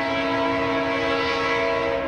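Diesel locomotive's air horn sounding one long, steady multi-note chord over the low rumble of the train, cutting off at the end.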